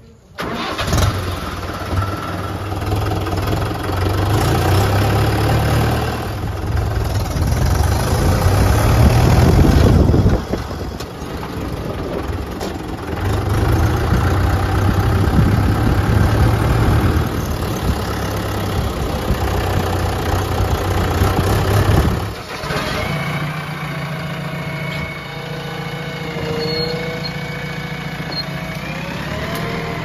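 Swaraj tractor's diesel engine starting abruptly and running, its level rising and falling as it is revved. About 22 seconds in, it gives way to a steadier engine sound with a whine that bends upward near the end.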